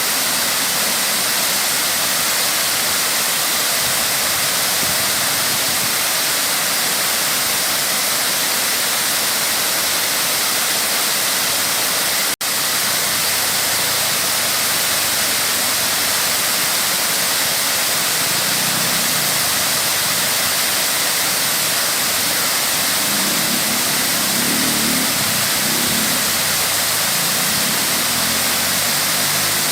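Waterfall rushing with a steady, even hiss, cutting out for an instant about twelve seconds in.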